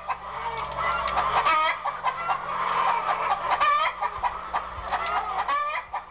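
A flock of Ohio Buckeye hens clucking and squawking, many short calls overlapping one another.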